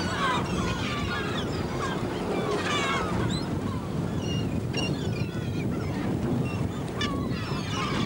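A large flock of gulls calling, many short overlapping cries, over the steady low hum of the boat's engine.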